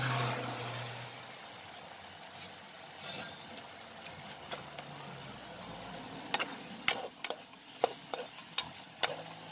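Chicken karahi gravy sizzling in a metal karahi. From about six seconds in, a metal ladle stirs it and knocks against the pan in a series of sharp clacks.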